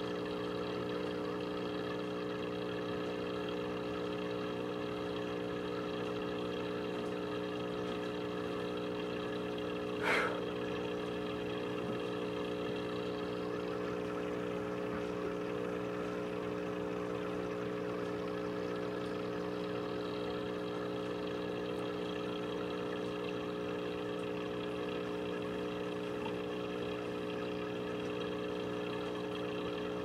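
Steady machine hum made of several fixed tones, unchanging throughout, with one short click about ten seconds in.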